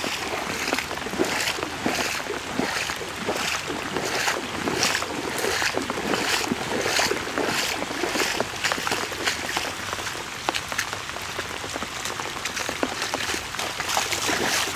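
Footsteps on a wet, muddy woodland trail, about two steps a second, over a steady hiss of water.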